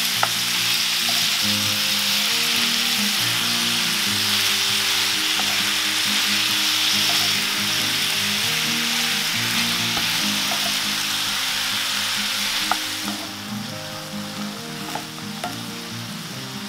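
Chicken livers, pear and spring onions sizzling in oil in a black iron pan, stirred with a wooden spatula that gives a few light scrapes and clicks. The sizzle turns noticeably quieter about thirteen seconds in.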